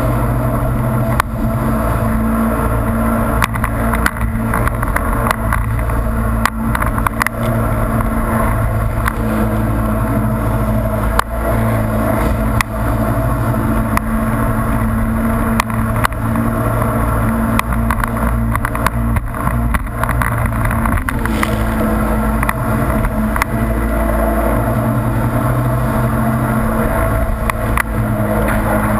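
Jet ski engine running at speed, with the rush of water spray and wind and frequent sharp knocks as the hull slaps the chop. It is heard from a camera mounted on the handlebars.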